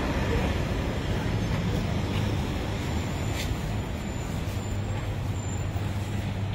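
Street traffic noise: a steady low rumble of motor vehicles with no distinct single event.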